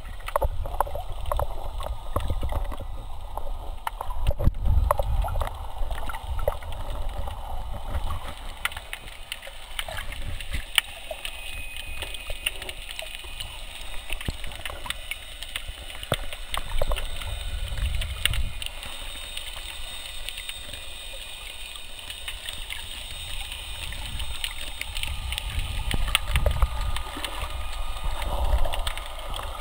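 Muffled underwater sound picked up by a camera submerged in the sea: a low, uneven rumble of moving water, with many scattered clicks and crackles throughout.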